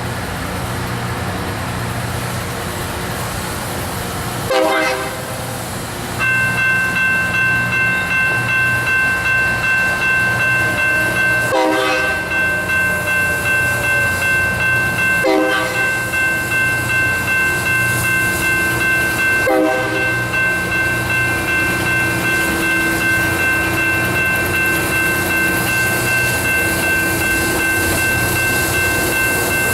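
LORAM rail grinder train running with a steady low rumble. From about six seconds in, a steady multi-tone signal joins it and pulses evenly, under a few short sharp bursts.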